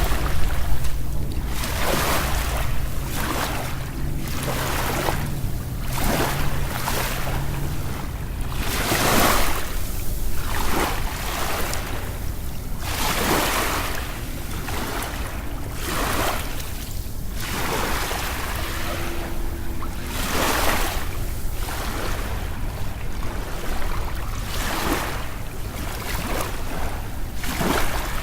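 Sea waves washing and breaking, swelling every second or two over a steady low rumble.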